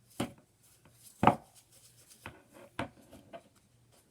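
Several sharp taps and clicks, the loudest a little over a second in: a small plastic container of silver glitter being handled and tapped to shake glitter out.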